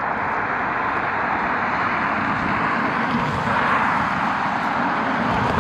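Jet airliner engine noise, a steady rush that swells a little past the middle.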